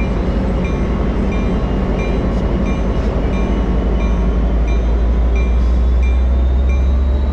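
Trinity Railway Express double-deck commuter train rumbling away from the platform, with a warning bell dinging steadily about twice a second.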